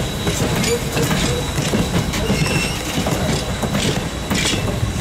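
Wooden passenger coaches of a steam train rolling past at low speed: a steady rumble of wheels on rail with clanks and knocks, and a few brief thin wheel squeals.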